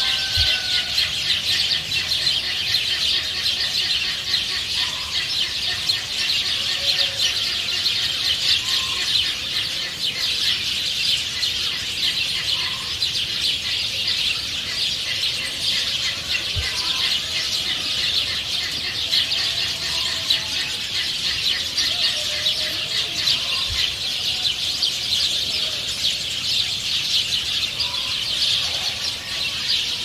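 Farmyard ambience: hens clucking every few seconds and small birds chirping over a steady high-pitched buzz.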